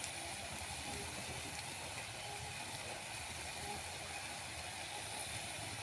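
Chopped onions frying in oil in a steel kadai: a steady, quiet sizzle with a few tiny pops.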